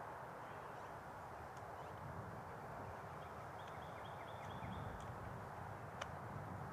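Quiet woodland ambience with a steady hiss. About halfway through, a small bird chirps a quick series of short high notes. A single sharp click comes near the end, with low rustling as a seated person shifts.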